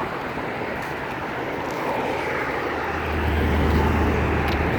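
Road traffic noise with a low engine hum that grows louder about two-thirds of the way through, as a vehicle's engine approaches.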